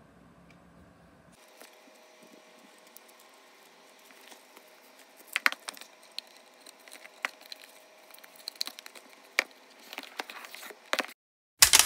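An Apple Pencil and its cardboard box being handled on a wooden desk: sharp clicks and taps with light rustling of the packaging, busiest from about five seconds in. Near the end the sound cuts off, and a loud steady sound with a few held tones starts.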